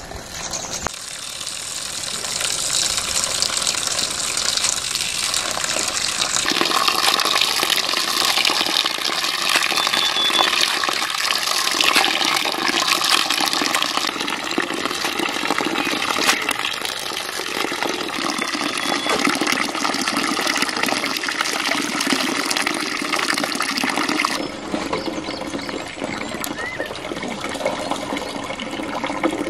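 Water pouring and splashing into a steel bowl as hands wash leafy greens in it. It turns quieter after a sudden change late on.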